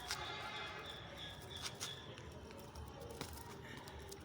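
A pet bird making short, high chirps that repeat a few times a second and stop about two seconds in, with three sharp clicks.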